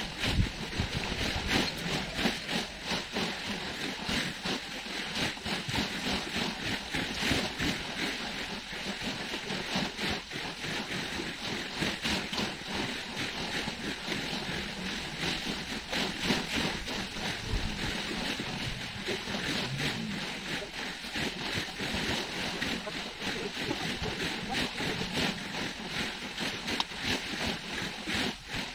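Small waves washing onto a sandy shore with wind on the microphone, which sometimes gusts into a low rumble. Irregular rustling and crackling of tent fabric and poles being handled while dome tents are pitched.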